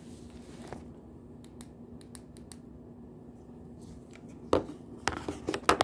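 Faint steady hum with a few light ticks, then a run of sharp clicks and taps from hands and a small tool handling things on a workbench, starting about two-thirds of the way in.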